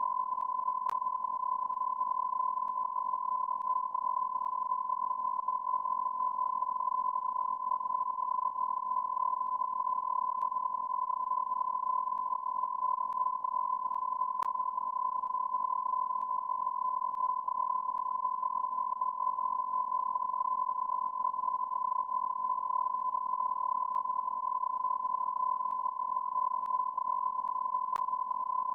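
A steady electronic beep tone, a single high pure pitch held unbroken like a long censor bleep, over a faint hiss, with a faint click now and then.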